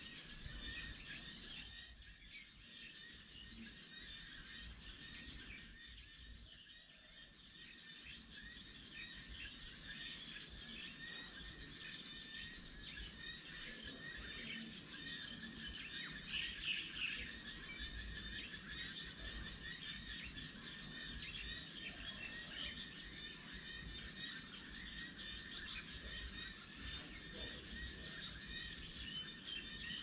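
Birds chirping and calling in a steady background chorus of many short chirps, with one louder call a little past halfway through.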